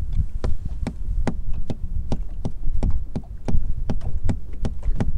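A foot tapping steadily on the boat's floor, about two and a half dull knocks a second: the old trick of making noise on the hull to draw white bass (sand bass) under the boat and keep them there.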